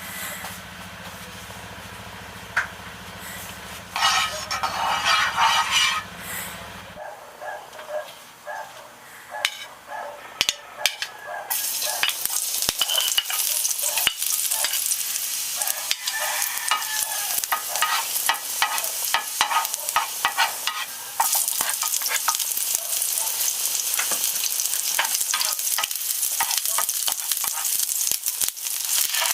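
Frying pan work: utensil clatter and taps at first, then from about twelve seconds in a steady sizzle of food frying in oil, with frequent spatula scrapes and taps as the sauté is stirred.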